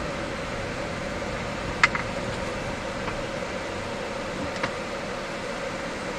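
Steady car cabin noise of a car creeping along at low speed, with the engine and air-conditioning fan running as a constant hum. A quick double click comes about two seconds in, and a single click near five seconds.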